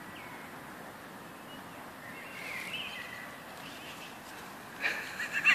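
Open-air background with a few small birds chirping, then geese honking loudly in quick repeated calls starting near the end.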